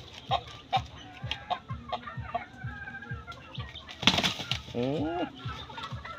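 Shamo gamecocks fighting, with a short burst of wing flapping about four seconds in as one rooster leaps at the other. A brief rising cry follows just after.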